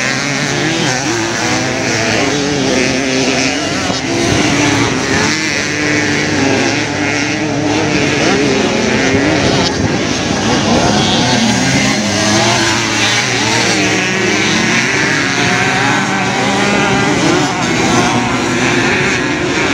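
Several vintage motocross motorcycles racing, their engines revving up and down over one another without a break.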